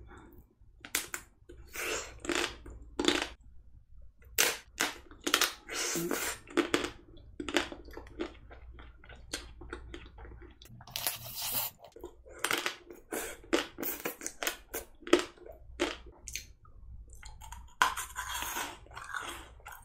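Someone biting through the crisp chocolate coating of Magnum ice cream bars and chewing close to the microphone. Many short crunches and cracks follow one another, with wet chewing sounds between them.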